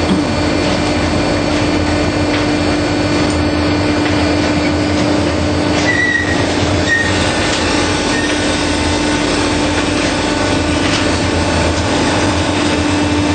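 Automatic baler running: steady, loud machine noise with a constant hum, and a couple of short squeaks about six and seven seconds in.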